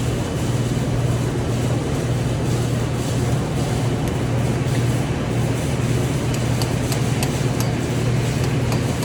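A TIG welding machine's steady low hum over a constant hiss, with a few light ticks in the last few seconds.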